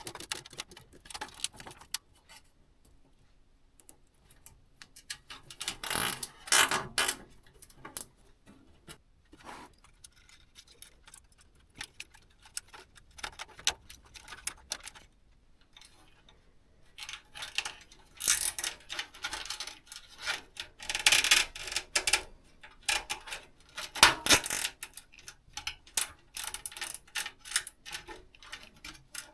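Irregular clicks, taps and clattering from small hardware being handled during PC assembly, in several short bursts with quiet gaps between them.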